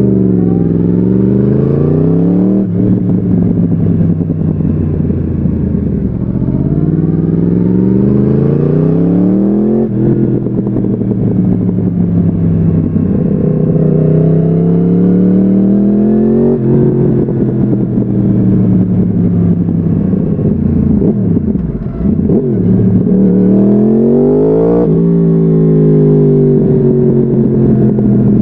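2014 Yamaha YZF-R1's crossplane inline-four through a Bodis slip-on exhaust, under acceleration. The engine pitch climbs and drops sharply at each gear change, about four times, with a brief lift off the throttle a little past two-thirds through.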